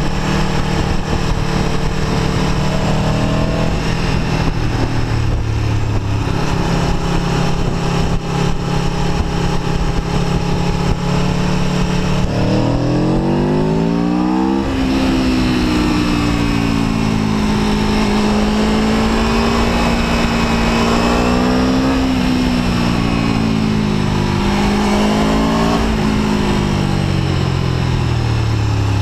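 Aprilia Tuono V4 1100 RR's V4 engine heard from on the bike: running steadily at low revs, then revving up sharply about halfway through, dropping at a gear change, and rising and falling with the throttle before the revs fall away near the end.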